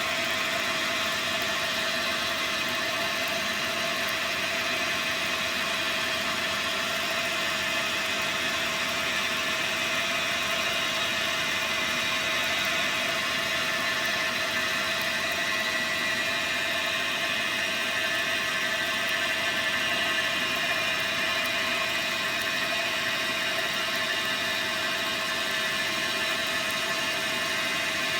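Dyna Mechtronics DM3000 CNC lathe running as it turns a part, a steady whir with a constant mid-pitched hum and no change in level.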